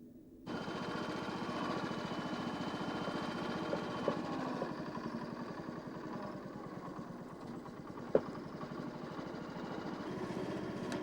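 A small engine running steadily. It cuts in abruptly about half a second in. A couple of sharp clicks sound over it, about four and eight seconds in.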